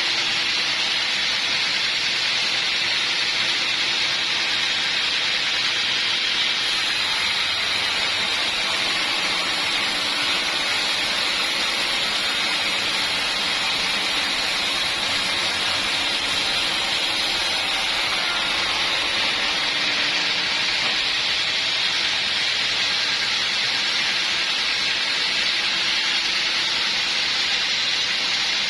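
Sawmill saw running through a log: a steady, even hiss.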